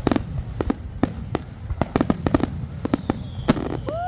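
Fireworks display: a rapid, irregular run of sharp bangs and pops over a low rumble, with the loudest bang about three and a half seconds in.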